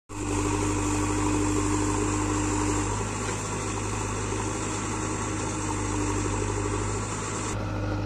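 JCB 3DX backhoe loader's four-cylinder diesel engine running steadily as the backhoe arm digs.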